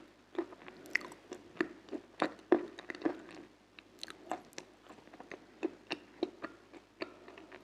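Close-miked biting and chewing of a crunchy food, with sharp irregular crackling crunches several times a second and softer mouth sounds between them.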